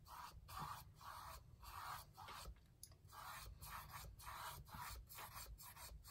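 Paintbrush stroking wet paint onto a stretched canvas: faint scratchy rubbing strokes, back and forth about twice a second.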